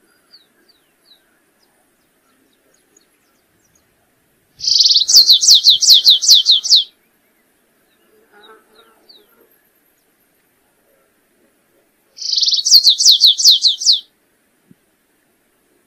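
Canário-rasteiro (stripe-tailed yellow finch) singing: two song phrases about six seconds apart, each a short buzzy note followed by a fast run of falling notes, with a few faint soft notes in between.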